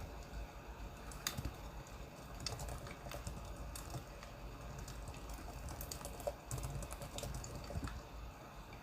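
Crackling wood fire: irregular sharp pops and crackles, several a second, over a low steady rumble.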